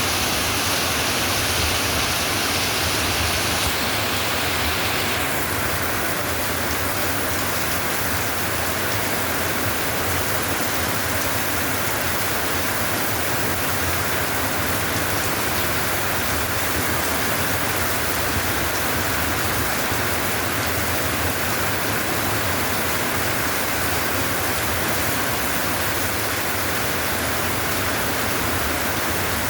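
Steady rain falling: an even, continuous hiss that softens slightly in the high end about four to five seconds in.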